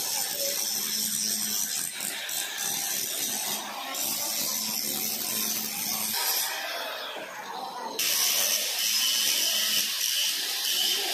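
Electric angle grinder with a cutting disc cutting through a steel pipe, a steady high grinding hiss over the motor's hum. About six seconds in the sound falls away briefly, then the cutting comes back louder at about eight seconds.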